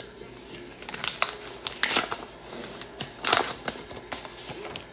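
Packaging being handled and opened by hand: irregular rustling and crinkling, loudest about two seconds in and again just past three seconds.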